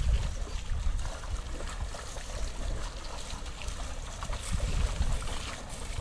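Water splashing and churning as bullocks' hooves and cart wheels wade through shallow river water, in small irregular splashes over a steady wash. Wind rumbles on the microphone underneath.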